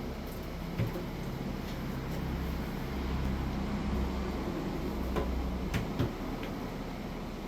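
Honey extractor spinning honeycomb frames with a low mechanical rumble, which builds about two seconds in and eases off near the end. A few sharp clicks and knocks come from the machine partway through.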